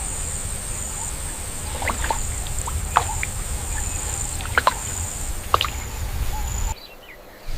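Outdoor nature ambience: a steady high-pitched insect-like drone over a low rumble, with a few short, sharp chirps. It cuts off abruptly near the end.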